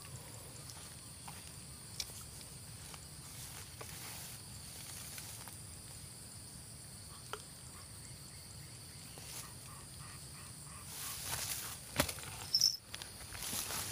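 Quiet outdoor ambience with a steady, high insect drone and a few small scattered ticks. Near the end, louder rustling close to the microphone with a sharp click, as a hand moves right by the camera.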